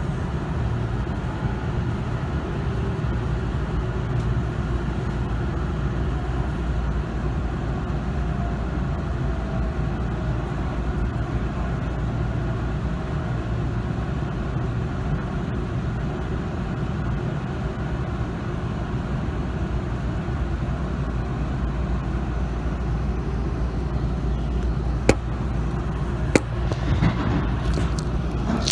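Steady low rumble inside a Tobu Tojo Line train car, with a faint whine gliding in pitch in the middle and two sharp clicks near the end.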